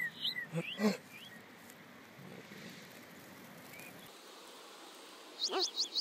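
Fledgling songbird giving short, high begging cheeps while being hand-fed earthworms: a few in the first second, then a quick run of about five near the end, with quiet between.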